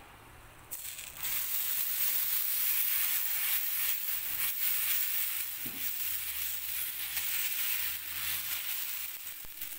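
Dosa batter sizzling on a hot tawa as it is poured on and spread in circles with a ladle. The sizzle starts suddenly about a second in and keeps on steadily.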